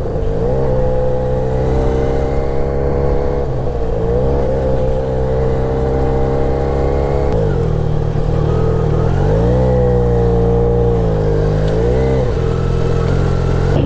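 Motorcycle engine running under way, its pitch dipping and climbing several times as the rider shifts gears and works the throttle.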